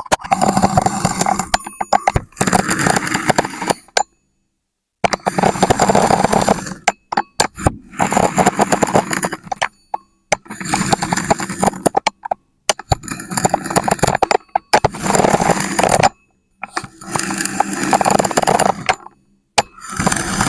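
Grainy crunching of sand being pressed and cut. It comes in a series of short passages, each a second or two long, broken by abrupt silent cuts.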